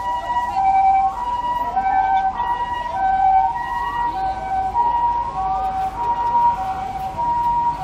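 Sirens: a two-tone high-low siren alternating steadily, overlaid with a second pattern of rising whoops repeating about once a second.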